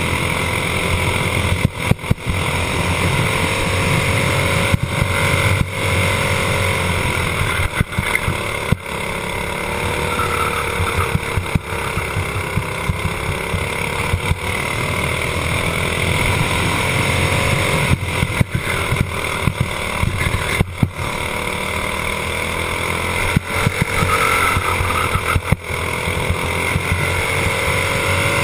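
Racing kart engine at race pace, heard from a camera mounted on the kart. Its pitch sags and climbs again several times as the kart slows for corners and accelerates out of them, with frequent brief crackles and dropouts.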